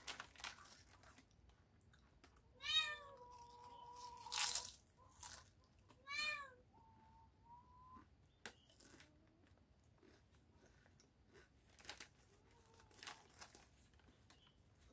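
A domestic cat meowing twice: a long meow about two and a half seconds in and a shorter one about six seconds in. Between them come intermittent crinkles of a foil potato-chip bag as a hand reaches into it.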